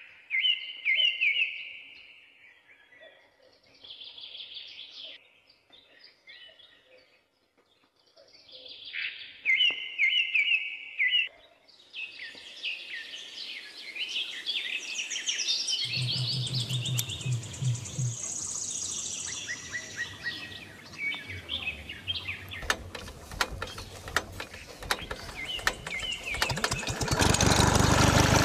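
Birds chirping and singing in repeated short phrases. Near the end the toy diesel-engine water pump's small motor starts up: rapid ticking builds into a loud, steady engine-like running.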